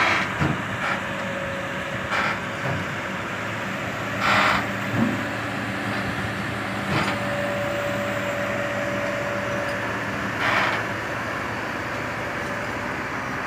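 Heavy diesel engines idling steadily, a lowboy tractor truck and a loaded excavator. Short hisses of air cut in twice, about four seconds in and again near ten and a half seconds, and a faint held tone sounds for a few seconds in the middle.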